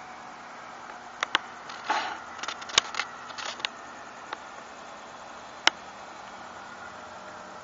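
A few sharp clicks and a short rustle about two seconds in, over a steady faint hiss; one more click near the end.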